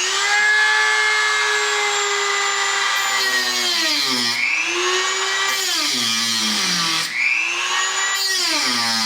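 Dremel rotary tool spinning up to a high whine and cutting a slot into the head of a damaged Robertson screw. Its pitch sags about four seconds in, again a couple of seconds later, and near the end as the tool bites into the screw, recovering in between.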